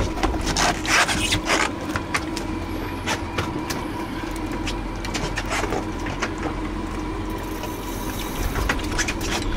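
Outboard engine idling with a steady hum while water splashes and sloshes along the boat's hull. Scattered sharp clicks and knocks come through, most of them in the first couple of seconds and again near the end.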